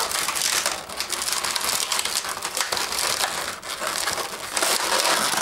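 Latex modelling balloons (260s) rubbing against each other and the hands as they are twisted and adjusted, a continuous crinkly rubbing full of small clicks.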